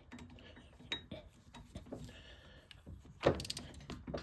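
Ratcheting torque wrench tightening the bolts of a taper rear hub, with scattered metal clicks and one louder knock about three seconds in.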